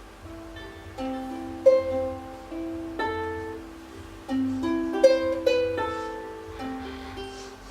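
Music: a plucked-string instrument plays a melody of single notes, each starting sharply and ringing away, over a faint low hum.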